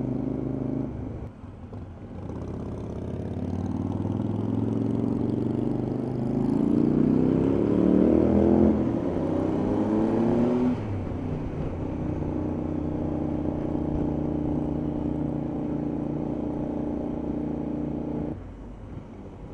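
Motorcycle engine pulling away, its revs rising through several climbs, then holding a steady note while cruising, and cutting off abruptly near the end.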